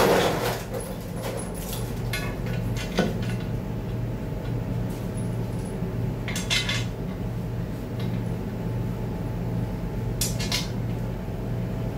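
Small metal parts clinking and knocking against a transmission case as it is assembled by hand, a few scattered clinks over a steady low hum.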